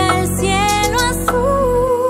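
Pop song with a female lead vocal singing held, wavering notes with vibrato over a bass-and-instrument backing; the low bass drops out just before the end.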